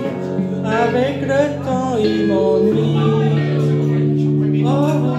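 A man sings a French pop song into a handheld microphone over a backing track of held chords. His voice comes in phrases, one in the first two seconds and another starting near the end.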